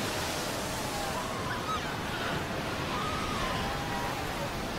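Ocean surf breaking and washing over the shore, a steady rushing of water without a break.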